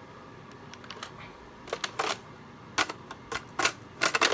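Plastic Nerf blasters being handled: several sharp, uneven clicks and knocks, closer together near the end.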